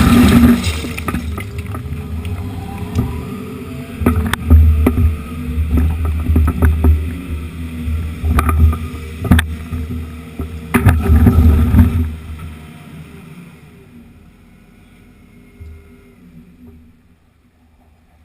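Excavator's diesel engine running hard while broken concrete chunks knock and scrape against the bucket and the pile, with several sharp knocks. About twelve seconds in the noise falls away to a faint low hum.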